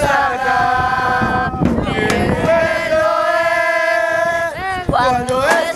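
Singing: a chant-like song of long held notes that slide from one pitch to the next.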